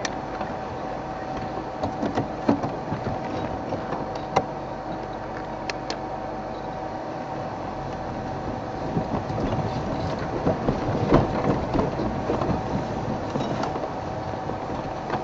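Game-drive vehicle crawling off-road over rough ground and through grass: engine running, with scattered knocks and rattles from the body and a steady hum underneath. The knocking grows busier about two-thirds of the way through.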